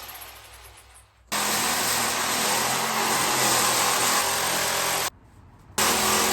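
A motorized tool running steadily, in clips that cut in and out abruptly.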